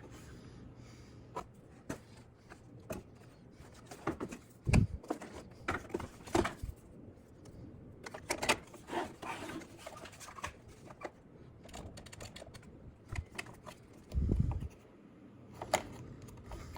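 Scattered clicks, taps and knocks of plastic and metal parts being handled and fitted onto a new car door window-regulator panel, with two dull thumps, one about five seconds in and one near fourteen seconds.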